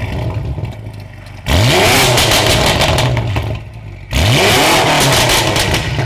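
BMW M5 F90's twin-turbo V8 breathing through catless downpipes and an Fi exhaust, revved in place: it idles, then is blipped sharply twice, about a second and a half in and again about four seconds in. Each rev holds loud for about two seconds before falling back to idle.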